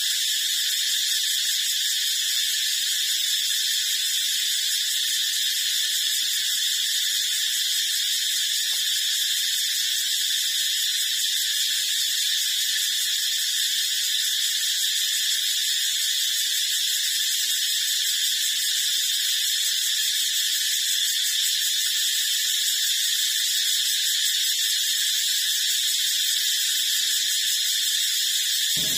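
A steady, unchanging high-pitched buzzing hiss, with nothing in the low range beneath it.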